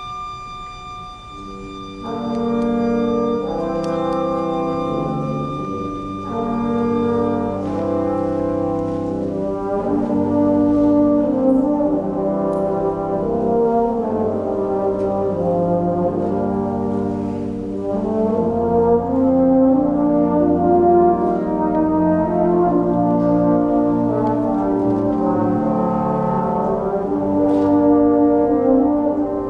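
Wind band playing: a held high chord for the first two seconds, then the brass section comes in with full, moving chords.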